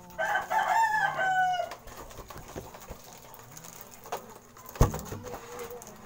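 A rooster crowing once, a call of about a second and a half that drops slightly in pitch at its end. About five seconds in, a single sharp knock.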